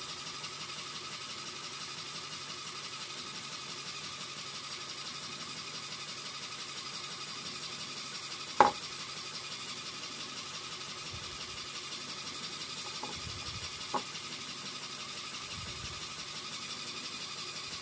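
LEGO Technic motor driving a pneumatic pump, running steadily with a fine mechanical rattle. A sharp click comes about halfway through, and a fainter one a few seconds later.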